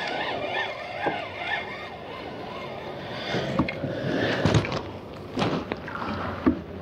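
Spinning reel being cranked in a steady rhythmic whir as a hooked burbot is reeled up, then splashing water as the fish thrashes at the surface beside the kayak, with a few knocks.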